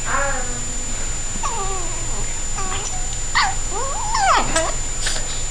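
Two dogs wrestling and calling out: a series of short whining yelps that bend up and down in pitch, with a louder rising-and-falling cry about four seconds in.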